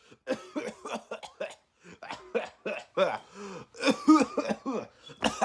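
A person coughing and clearing their throat, a series of short coughs one after another.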